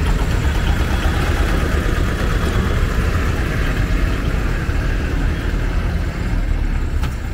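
Steady road-traffic engine noise as a loaded motorised cargo cart and then a truck drive past close by.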